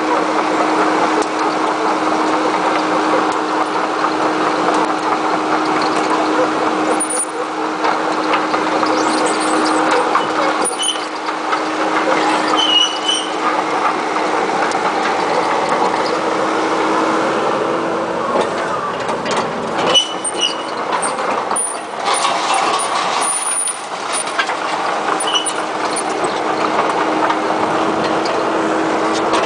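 Komatsu PC78MR-6 compact excavator's diesel engine running steadily with a constant hum while the machine travels on its tracks. High squeaks and clicks come and go.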